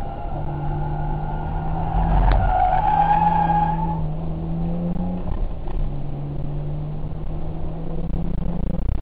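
Car engine running with the throttle changing several times, and tyres squealing for about two seconds, starting about two seconds in.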